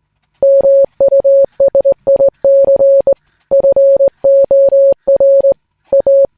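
A single steady electronic beep, keyed on and off in a Morse-code-like pattern of short and long beeps, with a faint click as each beep starts and stops. It starts about half a second in.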